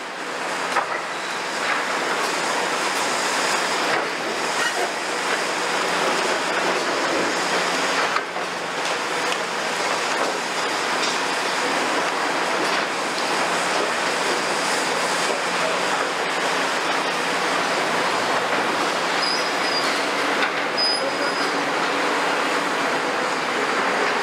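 Demolition excavators at work: diesel engines running under a continuous clatter and grinding of concrete rubble being crushed and falling, with a couple of brief high metallic squeals near the end.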